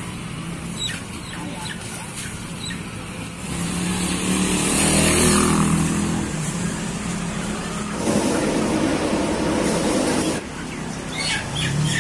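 Street traffic: a motor vehicle's engine passes by about four to six seconds in, and a louder rush of noise starts about eight seconds in and cuts off suddenly about two seconds later, over a background of voices.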